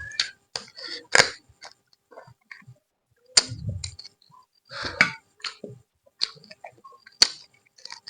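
Close-miked eating sounds of rice and chicken curry being chewed, with irregular wet mouth noises and a few sharp lip smacks.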